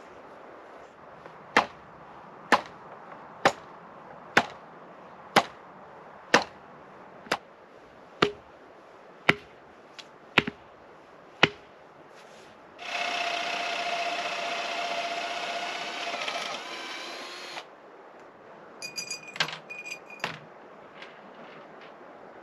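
Carport frame being built: about eleven evenly spaced hammer knocks, roughly one a second. Then a power drill runs steadily for about four seconds, and near the end comes a quick cluster of metallic clinks.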